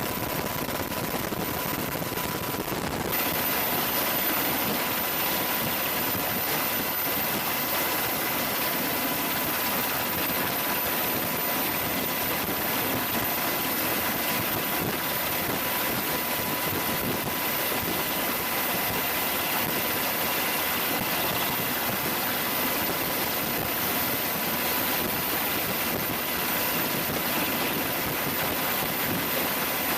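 Military helicopters running steadily, with an even rush of turbine and rotor noise and a steady whine whose pitch jumps higher about three seconds in.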